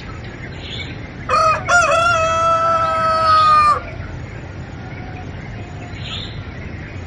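A rooster crows once, starting about a second in: a cock-a-doodle-doo of about two and a half seconds that ends in one long held note. It sits over a steady background hiss.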